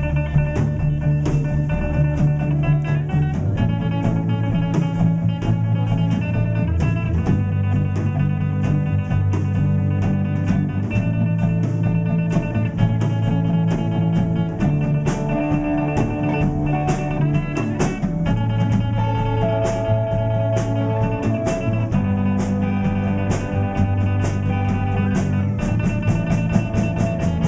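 A live rock band plays an instrumental break with guitar, sustained low notes and a drum kit keeping steady time on the cymbals. It opens with a loud hit and leads back into the chorus.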